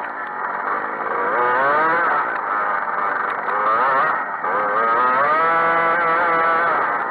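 Grass kart engine heard from on board the kart, its pitch climbing several times as it accelerates, dropping as the throttle comes off, and holding steady for a stretch near the end.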